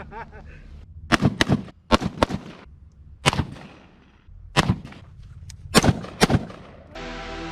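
Gunshots from a firearm being fired on an outdoor range: about eight sharp reports at an uneven pace, some in quick pairs, each with a short echo. Music starts near the end.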